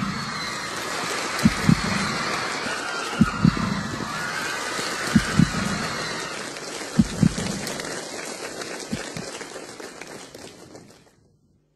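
Studio audience screaming and cheering, with a deep double thump repeating about every two seconds. The cheering fades out near the end and drops to silence.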